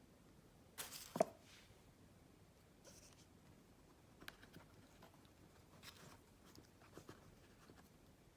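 Packaging being handled during a phone unboxing: a short scraping rustle ending in a sharp click about a second in, then a few faint rustles and light taps.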